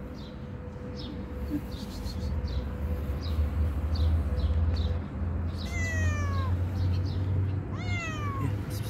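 Ginger-and-white kitten meowing twice, each meow falling in pitch, the second about two seconds after the first.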